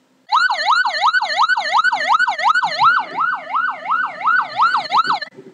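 Siren sound effect played from a phone app: a fast yelp siren, its pitch sweeping up and down about three times a second, stopping shortly before the end.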